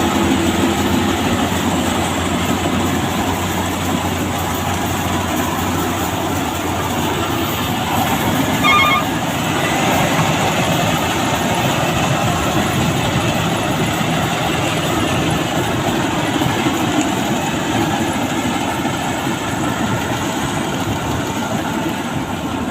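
BIMO rice combine harvester running, a loud steady mechanical din of engine and machinery. A short beeping sounds about nine seconds in.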